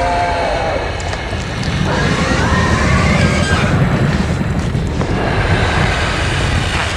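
Monster roar sound effect: a deep rumbling growl with higher, wavering screeching cries rising and falling over it from about two seconds in.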